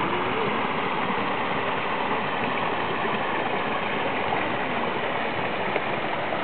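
Steady rushing of flowing water, an even hiss with no distinct splashes or breaks.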